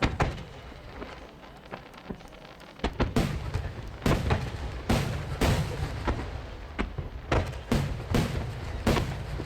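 Large aerial firework shells (12-inch shakudama) bursting in rapid succession with sharp, dry cracks. A few are scattered at first, then they come thick and fast from about three seconds in, with heavy low booming underneath.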